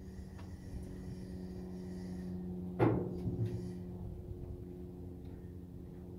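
A steady low hum with one dull thump a little under three seconds in.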